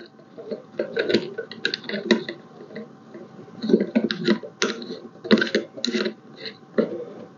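Irregular clicks, taps and light knocks of teleprompter parts being handled and fitted back together.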